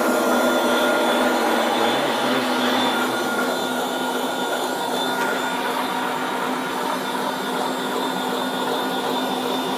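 Arnica ProMeat 2000 W electric meat grinder running empty: a steady motor hum and whine, a bit loud.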